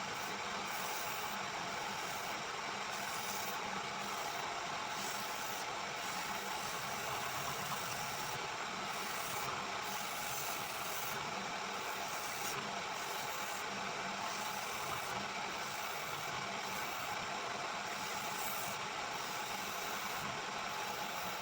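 A power woodworking machine running steadily with a constant mechanical hum and rush.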